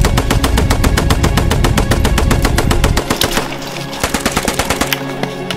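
Sustained rapid automatic machine-gun fire for about three seconds, then scattered separate gunshots.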